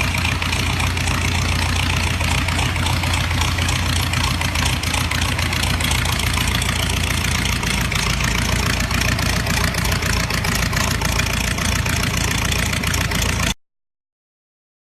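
A 1924 Ford Model T's four-cylinder engine idling steadily, with a fast even firing rhythm. The sound cuts off suddenly about a second before the end.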